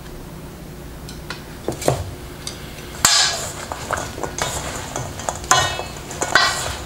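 Chopsticks stirring dried ginger slices and jujube pieces in a metal mixing bowl, clattering and scraping against the bowl with sharp clinks. It starts suddenly about three seconds in, after a few light knocks.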